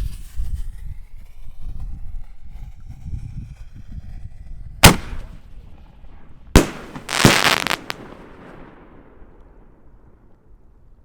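A 6-inch double-break canister firework shell bursting in the air: two sharp bangs about a second and a half apart, about five seconds in, followed by a short rush of crackle. The bangs echo and rumble away afterwards.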